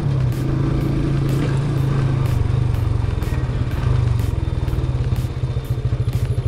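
Motorcycle engine running steadily at low speed on a dirt track. Near the end its note breaks into a rapid chugging beat of about seven pulses a second.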